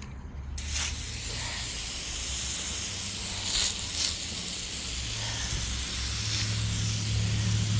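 Steady hiss of water being sprayed onto a freshly sawn black walnut board, starting about a second in, with the sawmill's engine running underneath as a low hum.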